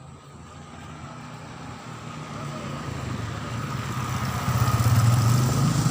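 A motor engine running steadily and growing steadily louder as it comes closer.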